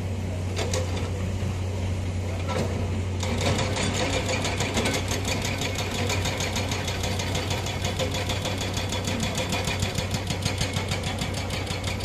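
Diesel engine of construction machinery running with a steady low drone. A few loose clanks come at first, then about three seconds in a rapid, even clatter of knocks sets in and keeps going.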